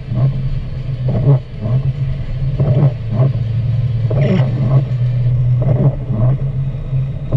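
Inside a car cabin: steady engine and road drone on a wet road, with the windshield wipers sweeping the glass in a repeating pattern of paired swishes about every one and a half seconds.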